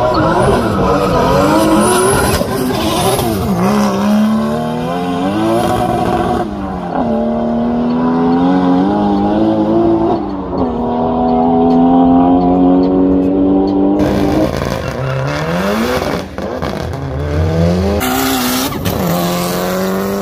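Drag racing cars accelerating hard down the strip, the engine pitch climbing through each gear and dropping back at every shift, several times over.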